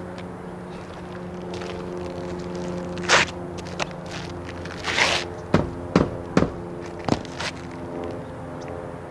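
Hammer blows driving a raised roofing nail head back down flush into an asphalt shingle: about eight sharp strikes, starting about three seconds in, spaced out at first and then coming in quick succession. A popped-up nail like this lifts the shingle and will cause a leak if it is not driven down and sealed.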